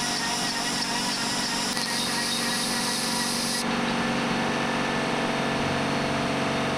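Router spindle of a DIY CNC router running steadily with many steady tones while its end mill cuts aluminum plate. A high hiss on top drops away suddenly about three and a half seconds in, and the motor keeps running.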